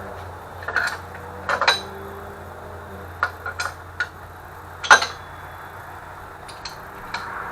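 Metal clinks and knocks from hand tools and engine parts being handled, a handful of separate sharp strikes with the loudest about five seconds in.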